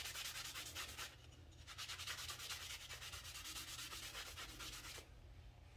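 A wad of paper towel rubbed quickly back and forth over a small piece of Baltic birch plywood, wiping on wood stain: quiet, even, rhythmic strokes. There is a short pause about a second in, and the rubbing stops about five seconds in.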